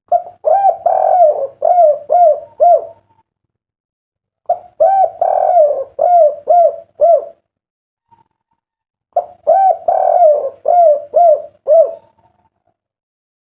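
Spotted dove (derkuku) cooing: three phrases a few seconds apart, each a couple of short coos and a longer note followed by three short 'kuk' coos, the 'kuk 3' song prized by keepers.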